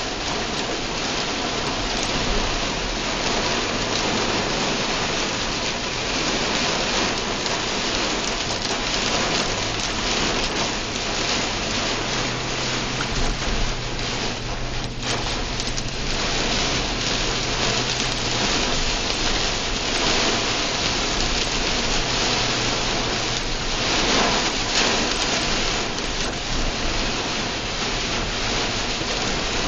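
Very hard rain beating on a car's roof and windshield, heard from inside the car as a dense, steady hiss.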